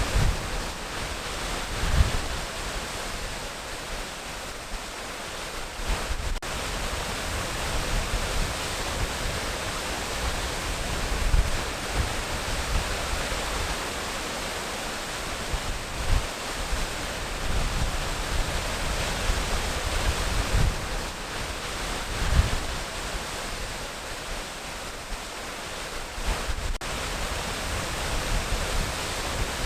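Waterfall: a steady rush of falling water, with a few brief low thuds now and then.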